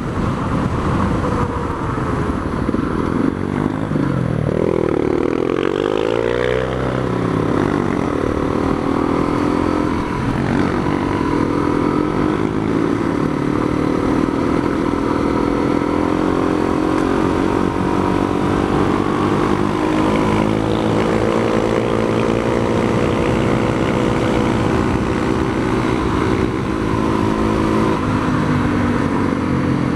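Single-cylinder dual-sport motorcycle engine under way, heard from on board. Its pitch dips and climbs twice between about four and seven seconds in as the bike slows and speeds up, then holds a steady cruise and eases off near the end.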